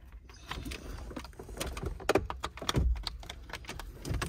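Irregular light plastic clicks and rattles of wiring connectors being handled and pushed onto the back of a dashboard climate-control part.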